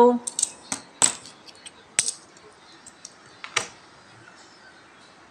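Metal coins clinking against each other as they are picked up and stacked by hand for counting: a handful of separate sharp clinks, the loudest about a second in and another about three and a half seconds in.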